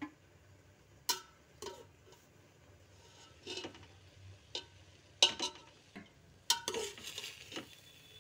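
Metal spoon stirring and turning cooked rice in a steel pot, with scattered clinks and scrapes of spoon against the pot's side.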